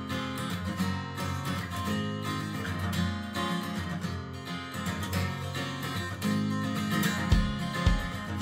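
Background music led by strummed guitar, with low bass thumps coming in near the end.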